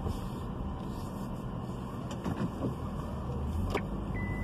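Car engine and road noise heard from inside the cabin as the car maneuvers at low speed, a steady low rumble with a couple of faint clicks. A beeping tone starts right at the end.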